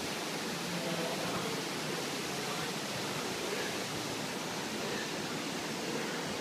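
Steady rushing noise, like running water at the seal pool, with faint voices murmuring in the background.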